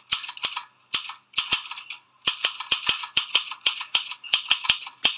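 Old desk telephone's bell ringing in harsh, rattling bursts that repeat unevenly and cut off suddenly at the end.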